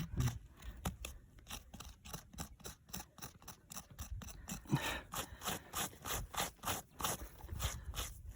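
A small hand digging tool scraping and picking at rock-hard, dry soil, with quick, irregular scrapes and clicks, several a second.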